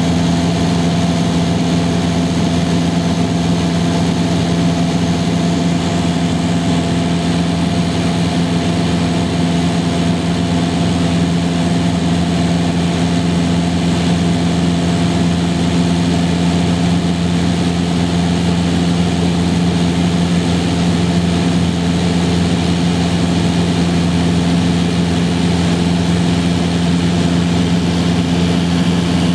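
A high-wing light aircraft's engine and propeller running steadily in flight, heard inside the cabin with an even rush of air noise. The pitch and loudness hold constant throughout.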